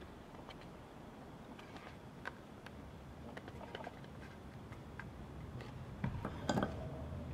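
Hand-carving a wooden skull: small cutting and scraping strokes of a blade on wood, with scattered light clicks. About six and a half seconds in, a louder knock with a short ring.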